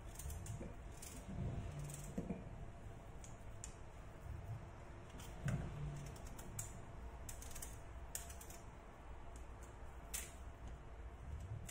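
Small kitchen knife peeling the hard rind off pumpkin pieces by hand: faint, irregular clicks and scrapes of the blade through the rind, with light taps on a wooden cutting board.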